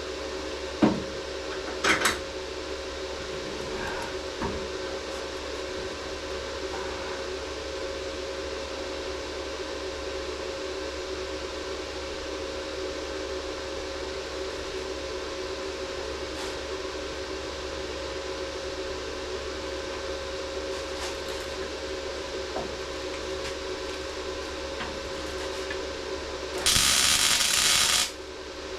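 Steady machine hum with a few clicks, then near the end a short, loud crackling burst of about a second and a half: a MIG welder laying a tack weld on a car's sheet-metal body panel.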